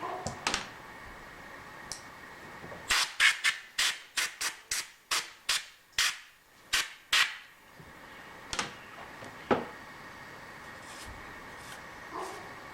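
About a dozen quick rasping strokes of hand work on a metal part over a few seconds, then two more single strokes, over a faint steady shop hum.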